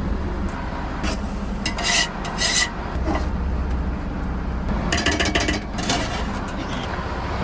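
Quick rasping scraping strokes in a few short bursts, over the steady low drone of the boat's engine.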